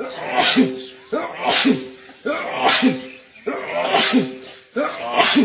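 A man sneezing over and over in a fit, about five loud sneezes roughly a second apart, each a short voiced intake breaking into a noisy burst.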